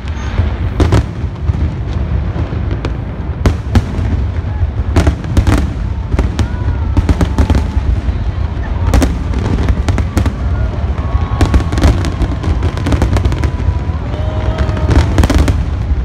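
Aerial fireworks going off in rapid succession: a steady run of sharp bangs over a continuous low rumble, coming thicker in the second half.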